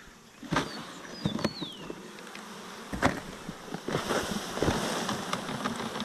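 A honeybee swarm buzzing as it is shaken out of a plastic tote onto a plywood board, with several sharp knocks as the tote is handled and jarred to dislodge the bees. The buzzing grows louder from about four seconds in as the mass of bees spills out.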